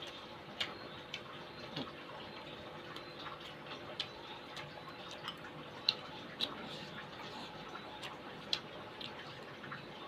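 Eating sounds close to the microphone: irregular wet clicks and smacks of chewing and mouthfuls of noodle soup and crispy tofu.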